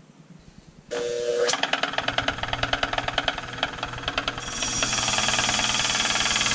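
Bench grinder running with a bronze wire wheel, the metal bottle opener held against the spinning wire. It starts suddenly about a second in with a fast, rhythmic rattle, then turns into a louder, steady hissing scrub past the middle as the wire brushes the old finish off the metal.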